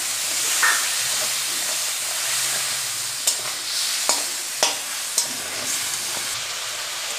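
Potatoes and spice paste sizzling in a kadai while being stirred with a spatula. From about three seconds in there are several sharp knocks of the spatula against the pan.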